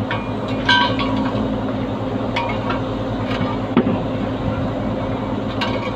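Steel tools on a truck's dual rear wheel: a wheel wrench and steel pipe extension clinking and knocking against the wheel nuts and hub, about five sharp metallic clinks, the loudest a knock about four seconds in. A steady low engine hum runs underneath.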